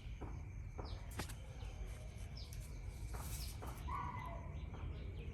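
Short, high chirps, each falling in pitch, repeated every half second or so over a low steady rumble, with a few clicks.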